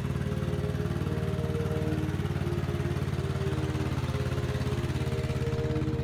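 Background music that starts abruptly, with a steady low droning bass under a slow melody of held notes.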